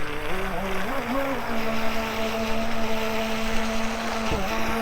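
Remote-control racing boat's electric motor running with a steady whine. Its pitch steps up and down with the throttle in the first second or so, then holds level, with a brief dip near the end.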